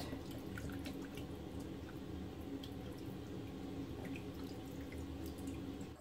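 Faint small splashes and drips of water as hands rub and rinse gutted horse mackerel in a plastic basin of water, washing out the blood and dirt.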